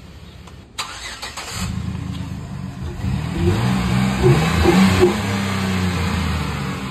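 Chevrolet Silverado pickup's engine starting, revved briefly a few times, then running steadily at idle.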